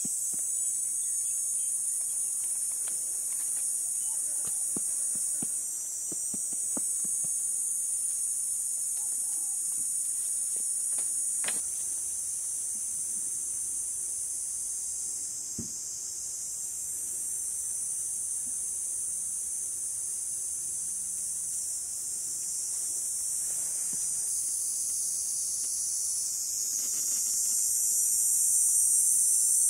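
A steady, high-pitched insect drone that fills the background, with a few soft taps and clicks in the first half.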